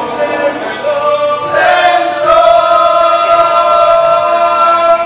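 A group of people singing together in chorus, loud, with one long note held through most of the second half.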